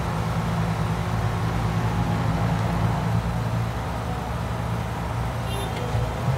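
Tracked excavator's diesel engine running steadily under load as its bucket digs into the topsoil.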